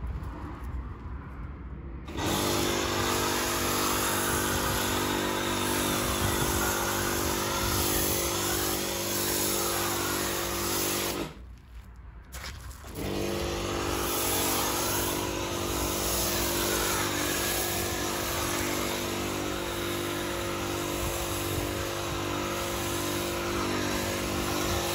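AVA P80 electric pressure washer running with a PF22.2 snow foam lance spraying foam: a steady motor hum under the hiss of the spray. It starts about two seconds in, cuts out for a moment near the middle, then starts again, and it runs evenly without pulsing.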